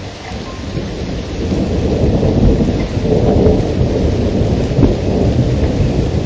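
Thunder rumbling over steady rainfall, swelling over the first two seconds and then holding steady.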